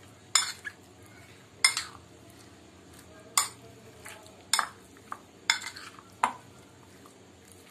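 Spoon clinking and scraping against a glass bowl while mixing chicken pieces. About six sharp clinks come roughly a second apart.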